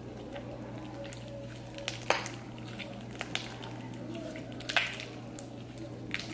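Slime being squished and worked by hand, with scattered wet clicks and pops; the sharpest snaps come about two seconds and about five seconds in. A steady low hum runs underneath.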